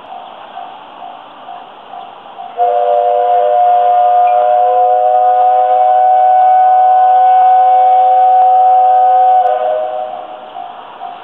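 Steam whistle of a JNR Class 8620 steam locomotive blowing one long blast, several tones sounding together as a steady chord, starting a couple of seconds in and fading out near the end. Before and after it, a faint ringing repeats about twice a second.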